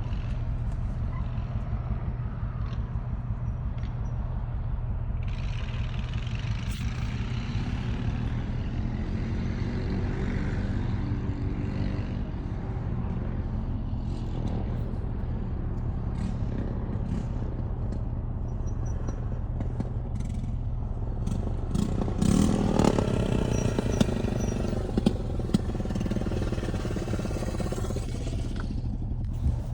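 Misfiring engine running on only five cylinders, driven under load. Its pitch climbs as it revs about a third of the way in, and again more loudly about three-quarters of the way in, with a few sharp clatters after the second rise.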